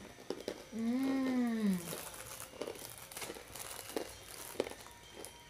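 Food packaging crinkling and crackling as snacks are unwrapped and handled, in scattered small crackles. About a second in, a short voiced note rises and falls over about a second.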